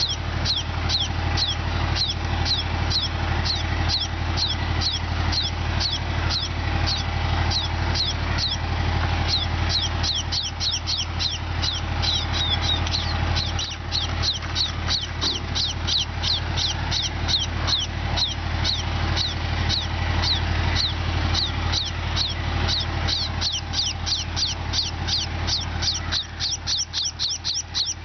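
Sparrows chirping steadily: many short, sharply falling chirps, several a second, coming faster toward the end. A steady low hum, like an engine, runs underneath.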